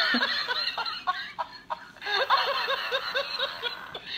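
Recorded laughing voice from a battery-powered rolling plush dog toy, played through its small built-in speaker: runs of quick 'ha-ha-ha' syllables with a short lull in the middle, and a few sharp clicks as the toy rolls over.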